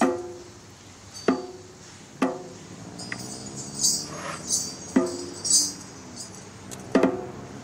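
Percussion instruments sounding one at a time: about five resonant drum strikes at uneven intervals, each ringing briefly at a pitch, with bursts of metallic jingling in the middle.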